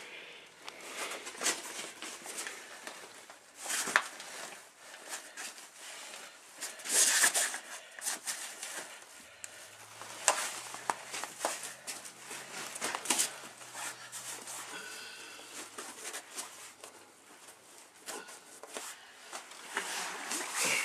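Clicks, knocks and rustling of an Arm's Reach co-sleeper crib's tube frame being handled as its legs are pressed down and snapped into their locks. A sharp click comes about 4 s in and a louder clatter about 7 s in.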